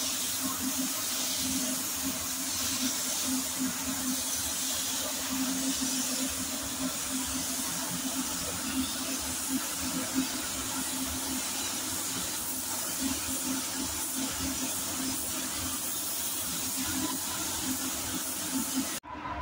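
Compressed-air spray gun hissing steadily as it sprays paint onto a car body panel, over a steady low hum.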